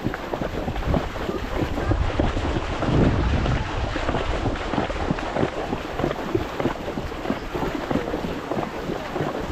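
Water splashing and rushing around a horse's legs as it wades through a river in flood, with wind rumbling on the microphone.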